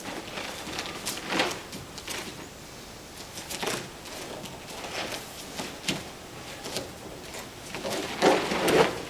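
Bare feet and cloth uniforms shuffling and rustling on a vinyl-covered foam mat during an aikido technique, with a louder thud and rustle about eight seconds in as the partner is thrown and takes a breakfall onto the mat.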